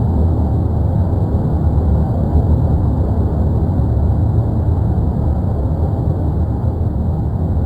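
Erupting volcano: a steady, deep roar with no breaks.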